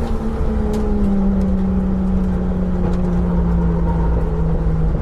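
Car engine running with a steady drone whose pitch sinks slowly, as the drift car coasts down in revs.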